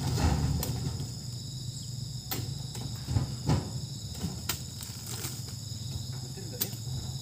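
Oil palm fruit bunches knocking as they are heaved up with spiked poles and land in a wooden truck bed, several short knocks at irregular intervals over a steady high chirring of insects.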